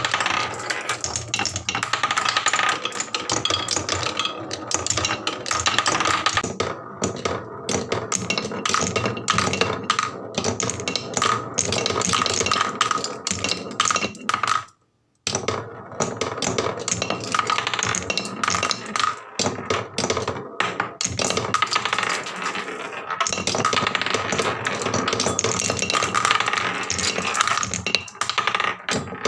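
Many glass marbles rolling and clattering down wooden marble-run tracks: a dense, continuous run of clicks and rattles with a rolling hum beneath. It cuts out briefly about halfway through, then resumes.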